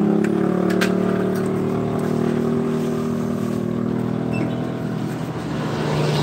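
A motor vehicle engine running steadily, its pitch drifting slowly lower, with a few light metallic clicks in the first second.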